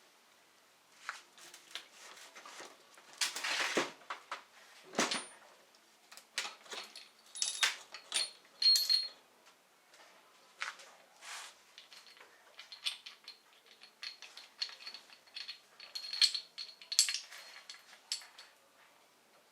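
Metal engine parts clinking and knocking as they are handled and set down, with a short scraping stretch about three seconds in and a couple of brief metallic rings later on.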